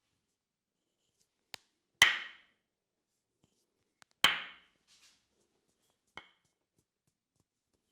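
Tok Sen tapping: a wooden mallet knocking on a wooden wedge. Each of the two hard knocks is led by a light tick, and a third, softer knock comes about 6 s in. Each knock rings briefly.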